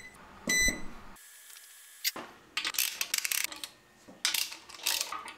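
A short electronic beep from a Vevor digital ultrasonic cleaner's control panel as it is set to warm up, about half a second in. After a short gap, a run of metallic clinks, clicks and rattles of tools and parts being handled on a bare engine block.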